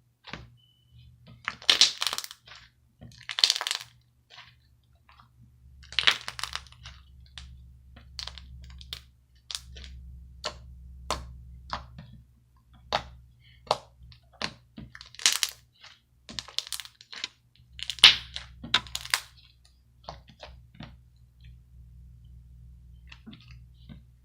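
A run of sharp pops and cracks at irregular intervals, some single and some in quick crackling clusters, the loudest clusters about 2, 3.5, 6, 15 and 18 seconds in.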